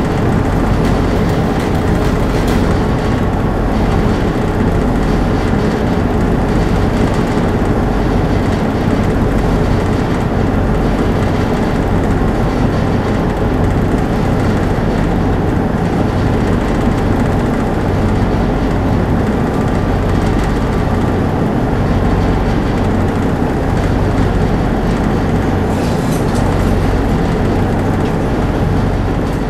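Voith Schneider tug's diesel engines running steadily, a loud, even low drone heard from inside the wheelhouse.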